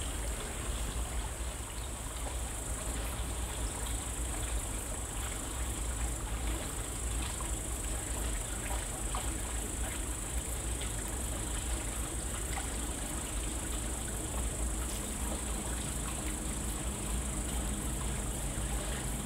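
Steady chorus of night insects, a constant high trill, over a low steady rumble, with faint scattered crackles from a small wood fire.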